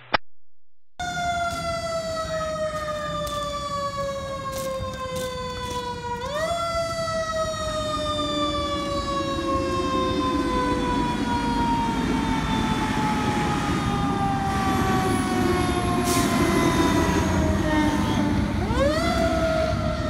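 Fire engine siren wailing as the truck passes. The pitch climbs quickly and then sinks slowly over many seconds, twice, over a steady low rumble. It starts about a second in, after a moment of silence.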